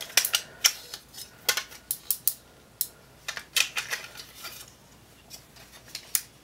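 Sharp plastic clicks and snaps from the ball joints and hinges of a plastic toy upgrade kit, turned and forced by hand. The joints are tight. The clicks come in quick clusters for about four and a half seconds, then thin out, with one more sharp click near the end.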